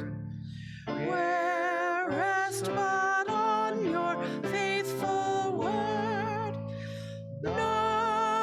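Hymn singing with instrumental accompaniment: a sung melody line with vibrato over sustained low chords. There is a brief break between phrases about a second in.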